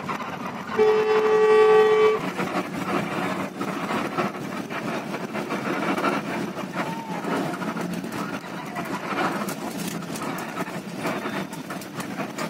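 Bus horn sounding one steady blast of about a second and a half, about a second in, over the steady running noise of the bus heard from inside its cabin.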